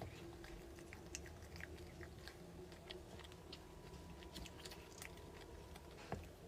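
A person chewing and biting into a rolled crepe cake close to the microphone: soft, scattered mouth clicks and smacks, with one sharper click about six seconds in.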